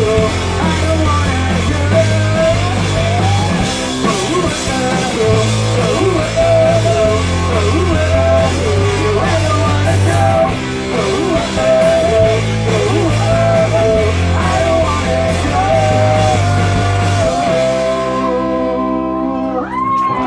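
Live rock band playing a song with drums, bass, guitar and a sung line near the start. Near the end the drums and bass stop and the held guitar chords ring out as the song finishes.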